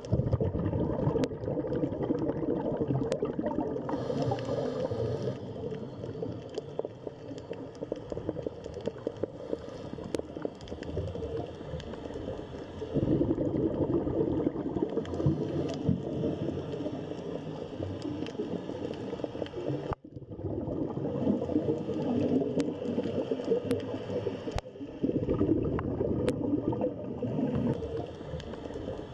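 Muffled underwater gurgling and bubbling water, a dense churning wash. It drops out for an instant about two-thirds of the way through.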